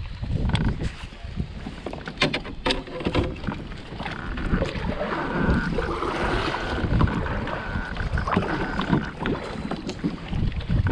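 Wind buffeting the microphone and water lapping against a kayak's hull, with a few sharp clicks about two to three seconds in.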